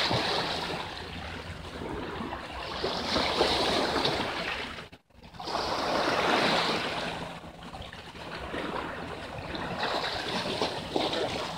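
Small sea waves washing and splashing against shoreline rocks, swelling and falling away every few seconds. The sound cuts out briefly about five seconds in.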